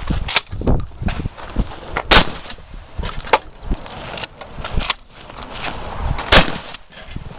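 Two loud shotgun shots about four seconds apart, with fainter knocks and clicks between them.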